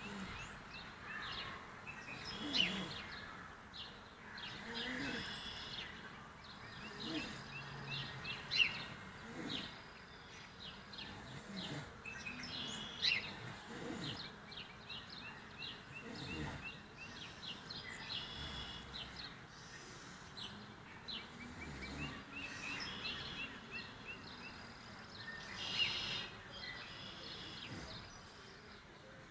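Birds chirping, with many short high calls and quick trills coming irregularly over a steady background noise.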